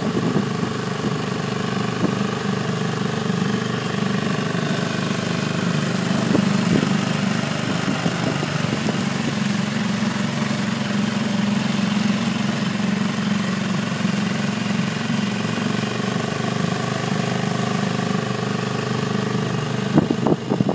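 A 6 hp outboard motor on a small inflatable running steadily at low speed, a constant drone. A few knocks near the end.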